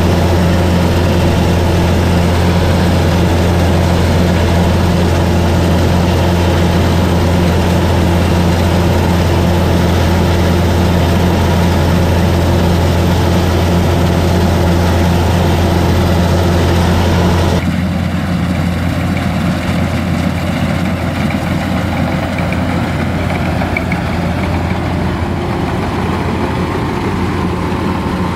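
Kubota DC-105X combine harvester's diesel engine running steadily under harvesting load, a loud, even drone heard from the operator's seat. About two-thirds of the way through, the sound changes abruptly to the same machine running, heard from outside and less loud.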